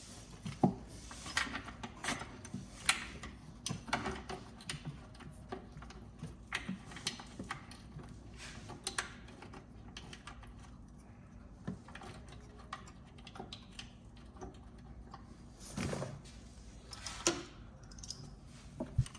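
Irregular clicks, clinks and light knocks of hand tools and metal parts as a throttle body is fitted back onto a car engine's intake, with a quieter stretch in the middle and a louder knock near the end.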